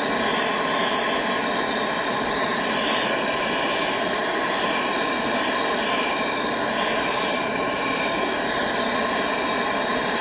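Gas torch burning steadily, its flame aimed into a clay crucible of melting sterling silver.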